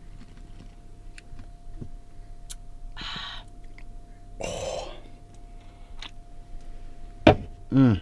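A person drinking beer, with two short breathy gulp-and-exhale sounds about three and four and a half seconds in, the second louder. Under it runs a faint steady hum, and there is a sharp click near the end.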